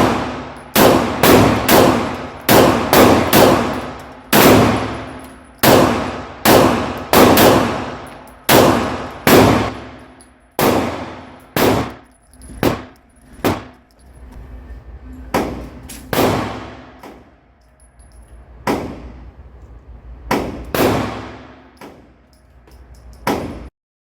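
Glock 17 9mm pistol fired in a string of about two dozen shots at an uneven pace, closely spaced at first and slower later. Each shot is followed by a clanging ring that fades over about a second, typical of hits on steel targets. The sound cuts off suddenly near the end.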